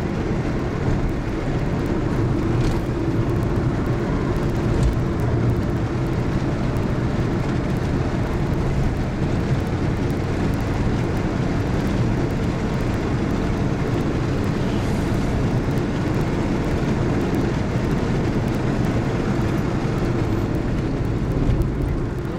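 Car engine and tyre noise heard from inside the cabin while driving at steady speed: a continuous low rumble that holds level throughout.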